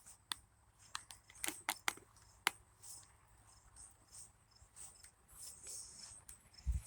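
Faint outdoor ambience: scattered clicks and rustles from walking and handling the handheld camera, over faint high insect chirping, with a low thump near the end.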